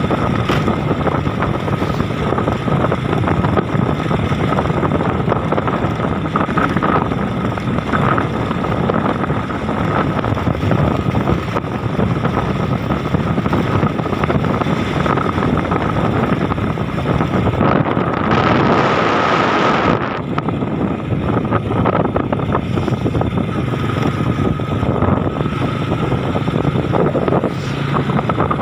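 Steady road noise from a moving vehicle, with wind rushing over the microphone and a faint steady whine. About two-thirds of the way through, a louder hiss swells for about two seconds.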